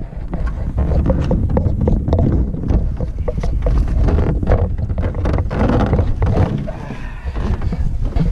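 Canoe being handled by two people: a run of irregular knocks and clatters against the hull over a low wind rumble on the microphone.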